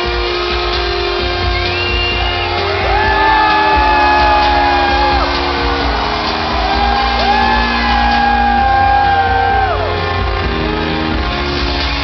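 Electronic dance music from a live DJ set played loud over a festival sound system, with a heavy steady bass, a stepping bass line, and two long held lead notes that each slide up into place, about 3 and 7 seconds in. Shouts from the crowd come through over the music.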